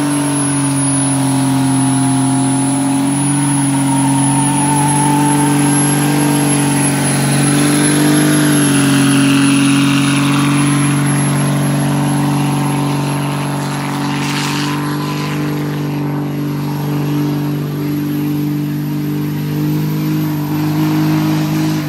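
Cummins inline-six turbo-diesel in a third-generation Dodge Ram pickup held at steady revs during a burnout. The engine note stays at nearly one pitch, wavering slightly, with a hiss above it.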